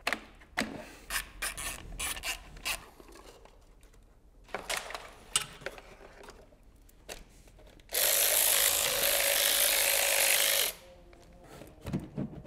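Scattered clicks and small plastic knocks as ignition wires and distributor caps are pulled off a BMW M70 V12 engine. Then a loud, steady rushing noise runs for nearly three seconds and cuts off abruptly, followed by a few more clicks.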